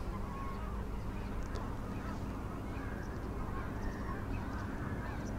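Gulls calling faintly over a steady low background rumble.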